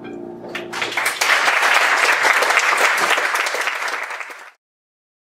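Audience applauding as the band's last chord dies away; the clapping swells about a second in and cuts off suddenly near the end.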